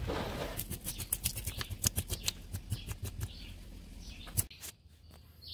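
Knife scraping the scales off a koi carp on a wooden cutting board: a rapid, irregular run of sharp clicking scrapes, with one louder click near the end.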